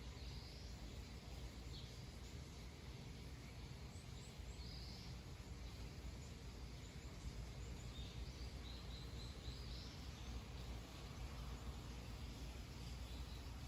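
Faint outdoor ambience of scattered short bird chirps, a few calls here and there, over a steady low background hum.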